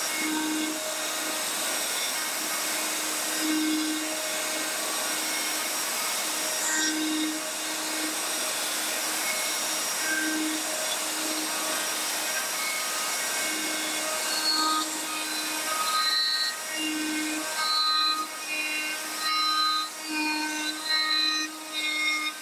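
A Bosch compact router, used as the spindle of a CNC machine, cutting through plywood, mixed with the steady rush of a shop vacuum hose held at the bit. In the second half short tones of changing pitch come and go, and the level starts to rise and dip.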